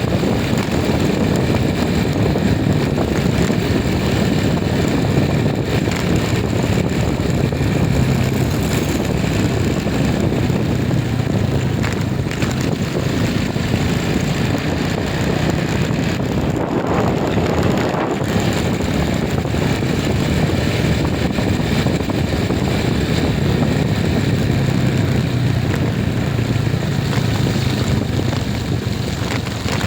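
A moving vehicle's engine and road noise: a steady low hum over a constant rumble, with a brief swell about halfway through.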